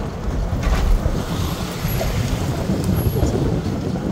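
Car driving slowly on a wet road, heard from inside the cabin: a steady low rumble of engine and tyres, with a short knock just under a second in.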